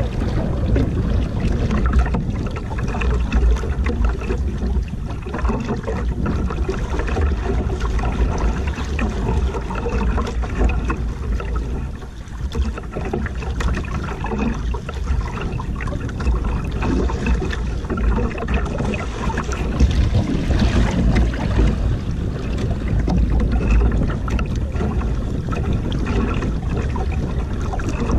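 Wind buffeting the microphone over water sloshing and splashing against the hull of a small outrigger canoe on choppy sea, steady throughout.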